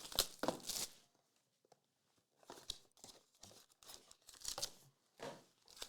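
Trading card pack wrapper being torn open and crinkled, in several short rustling bursts, the loudest in the first second and again near the end.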